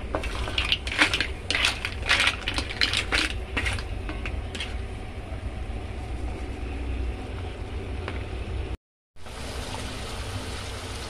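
Mussel and crab shells clattering and knocking against a stainless steel wok as they are stirred with a wooden spatula, the knocks stopping about halfway through; after that, butter sizzling steadily under the seafood, with a short dropout in the sound near the end.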